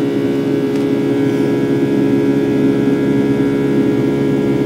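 Steady cabin drone of a Boeing 757-300's Rolls-Royce jet engines during the climb, heard from inside the passenger cabin, with several steady humming tones in it.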